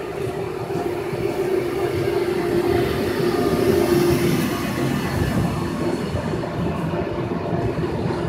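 VR Sr3 (Siemens Vectron) electric locomotives hauling a freight train slowly past as it comes into the station. A steady hum is loudest as the locomotives go by about four seconds in, then the wagons rumble past.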